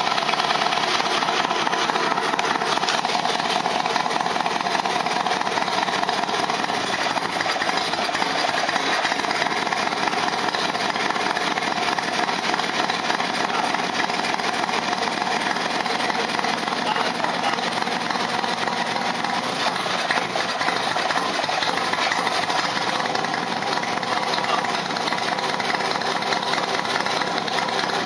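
Harley-Davidson motorcycle engine running steadily at idle, a continuous fast-pulsing engine note with no breaks.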